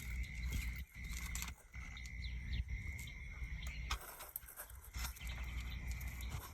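Outdoor background: a steady low rumble and a steady high tone, with a few faint bird chirps and light clicks.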